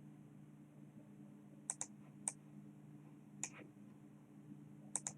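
Computer mouse clicking: a quick double click, two single clicks, then another quick double click near the end, as supports are placed in slicer software. A faint steady low hum runs underneath.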